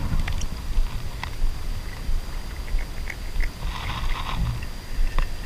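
River water moving around a wader's body, heard as a steady low rumble on a body-worn camera's microphone, with a few sharp clicks.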